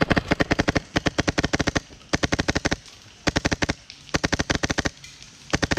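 Airsoft rifle firing full-auto in six rapid bursts of sharp shots, about fifteen a second, with short pauses between bursts.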